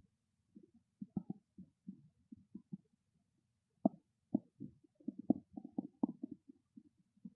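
A hungry stomach growling: a run of short, irregular gurgles and rumbles, with a brief pause about three seconds in, after which they come faster and louder.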